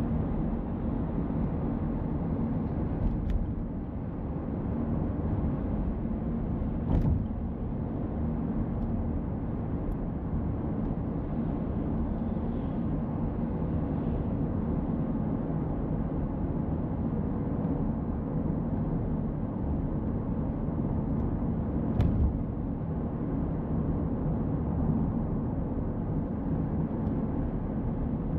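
A car driving at steady speed: a continuous low rumble of engine and tyre noise, with a steady hum. Three short knocks break through.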